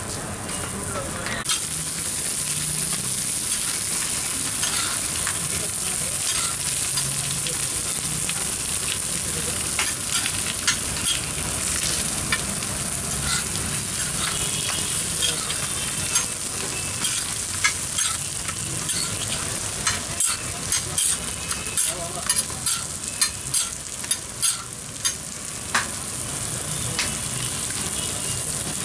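Parathas frying in oil on a large flat metal griddle, a steady sizzle throughout. A metal spatula clicks and scrapes against the griddle plate as the cook turns and presses the breads, the clicks coming thickest in the second half.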